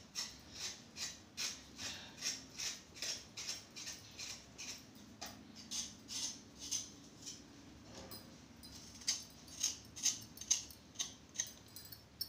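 A potato being peeled by hand: quick, even scraping strokes of a blade across the skin, about three a second, with a short pause a little past the middle before the strokes resume.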